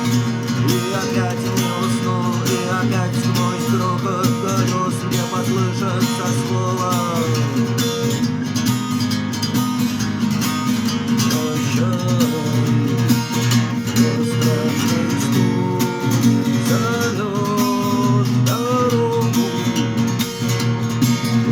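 Music: a strummed acoustic guitar with a gliding melody line over it, playing steadily.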